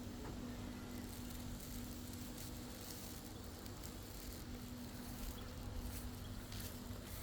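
Insect buzzing at a steady low pitch, over a low rumble and faint crackling.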